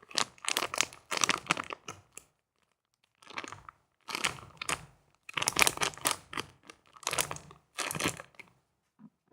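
Soft foam squishy toy being squeezed and handled close to the microphone, giving about seven short crinkly rustling bursts with brief gaps between.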